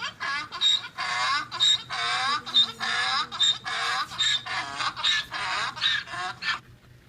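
A rapid series of short animal calls, about three or four a second, that stops about six and a half seconds in.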